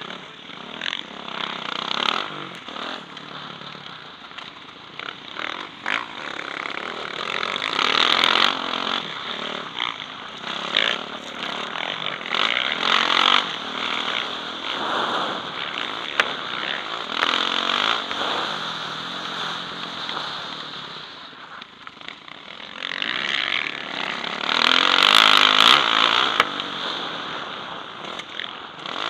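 A Yamaha motocross bike's engine revving hard and easing off again and again as it is raced round a dirt track, heard from a helmet-mounted camera.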